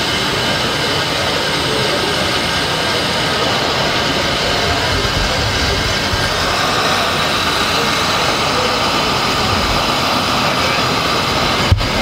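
Steady din of a busy indoor exhibition hall: a constant wash of noise with crowd voices mixed in. A short knock comes near the end.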